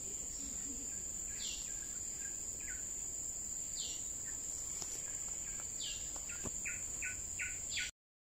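Tropical forest insects keeping up a steady high-pitched drone, with birds calling over it: a short falling note repeated every couple of seconds, then a quick series of short notes near the end. The sound cuts off abruptly just before the end.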